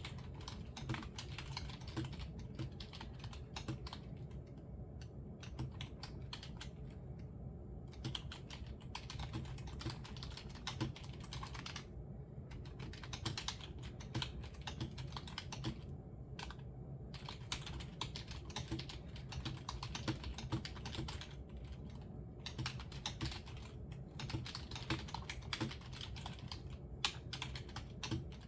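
Computer keyboard typing: rapid runs of keystrokes broken by several short pauses.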